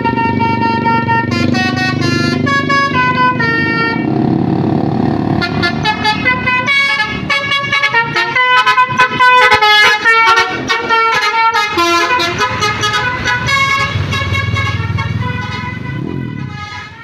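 Tour bus Basuri 'telolet' melody horn playing a tune of stepping multi-tone notes, with quick runs of short notes in the middle, over a low engine rumble. It fades out near the end.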